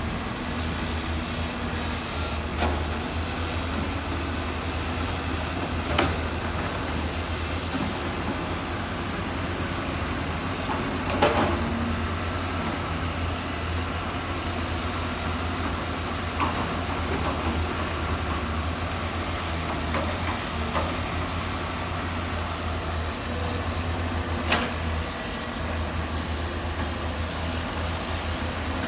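Heavy diesel construction machinery running with a steady low drone, broken by a few sharp metallic clanks, the loudest about eleven seconds in.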